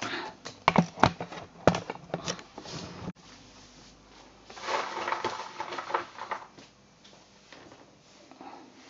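A handheld video camera being handled and set onto a tripod: a quick run of sharp knocks and clicks over the first three seconds, then it cuts off abruptly, followed about a second and a half later by a couple of seconds of rustling.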